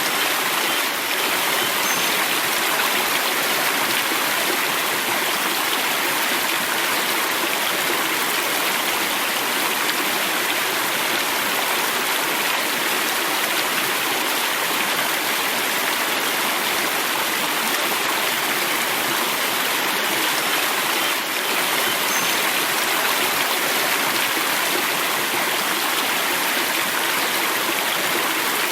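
River water flowing over rocks, a steady rushing and burbling of a stream.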